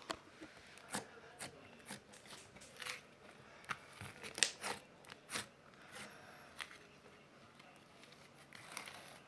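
Slime being squeezed and poked by hand, giving off irregular crackling pops and clicks.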